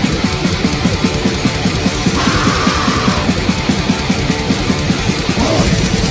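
Grindcore band playing live: distorted electric guitar over fast, relentless drumming with a dense, even pounding beat.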